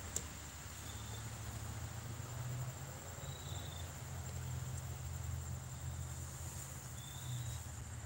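Quiet outdoor background: a steady high-pitched insect drone over a low, constant hum, with a few faint short chirps.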